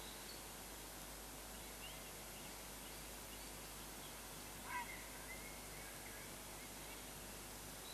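Faint steady outdoor hiss with a single short bird call a little past halfway, followed by faint chirping for about two seconds.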